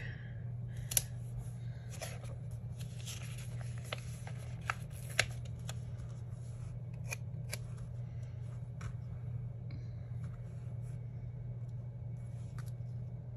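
Small craft scissors snipping a box sticker out of a sticker sheet, with paper rustling: a run of sharp snips over the first five seconds or so, then only occasional light clicks and taps as the cut sticker is handled and set on the paper page. A steady low hum runs underneath.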